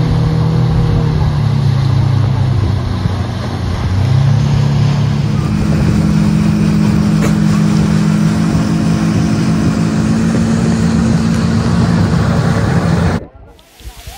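Speedboat engine running steadily under way, over a rush of wind and water. The engine note rises slightly about four seconds in, and the sound cuts off abruptly just before the end.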